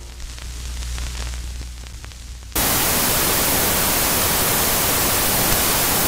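Glitch-transition sound effect: a low electrical hum with faint crackle, then about two and a half seconds in a sudden switch to loud, steady TV-static white noise.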